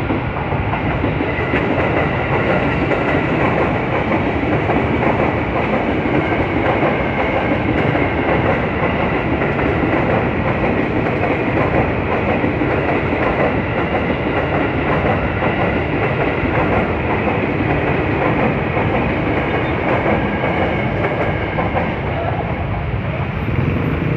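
KRL commuter electric train passing close by over a level crossing, its wheels running on the rails in a loud, steady noise.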